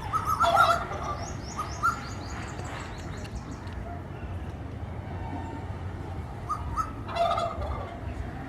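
Asian koel calling in two loud bursts of quick, repeated notes, one just after the start and another about seven seconds in. A smaller bird's series of high thin chirps runs between them.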